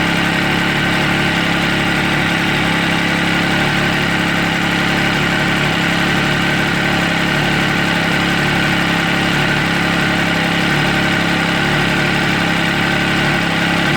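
MV Agusta Stradale 800's three-cylinder engine idling steadily at operating temperature, the cooling system under pressure for a leak check on the repaired radiator.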